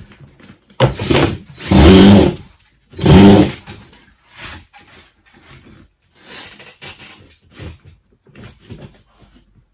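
Power drill driving screws through plasterboard into timber studs: short bursts of motor whine, the two loudest about two and three seconds in, then fainter, scattered sounds.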